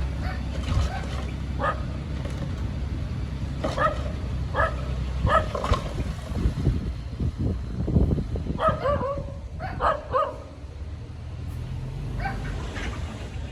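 A dog barking in short, repeated yelps over the low, steady rumble of a heavy machine's engine.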